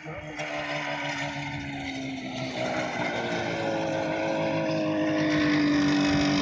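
Go-kart's 600 cc two-stroke snowmobile engine running hard as the kart drives toward and close past, getting louder. Its pitch dips slightly over the first couple of seconds, then holds steady.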